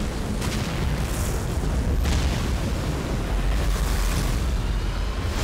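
Film sound effect of a huge churning wall of water whirling around a rooftop: a dense, steady rush with a heavy low rumble underneath.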